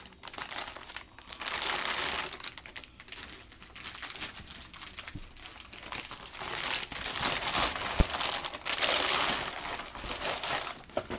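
Clear plastic packaging bag crinkling and rustling as it is handled and pulled open, in loud spells, with a single sharp click about eight seconds in.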